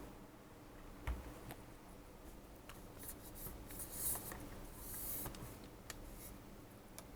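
Quiet handling sounds: a light knock about a second in, scattered small clicks, and bouts of rubbing or scraping.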